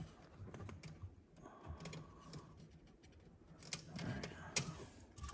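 Faint scattered clicks and light knocks of engine-bay hoses and plastic fittings being handled and fitted into place.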